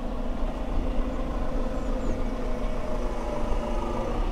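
A vehicle engine idling: a steady low rumble with a faint even hum above it.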